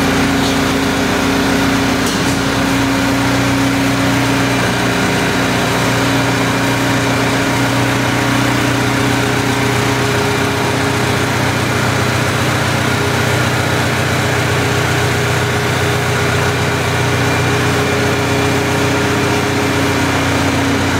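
Diesel engine of a Cat 226 skid-steer loader running steadily, its note shifting slightly about three seconds in.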